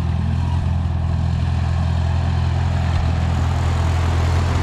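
A vehicle engine idling steadily, a low, even running note with no revving.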